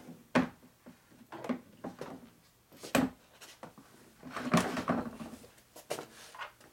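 A string of irregular metal clunks and knocks, roughly one a second, as heavy steel engine parts are handled and set down on a steel workbench.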